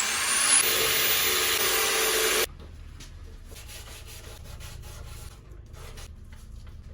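A sander works over the cured resin of a surfboard repair. It whirs up with a rising whine and runs loudly, then cuts off suddenly about two and a half seconds in. Quieter, uneven rubbing strokes follow.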